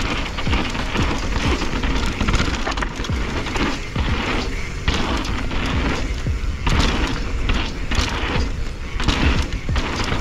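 Wind buffeting the handlebar-level camera microphone at riding speed, mixed with tyres running over a dry dirt trail and frequent low thumps and rattles from a Propain Spindrift mountain bike going over bumps.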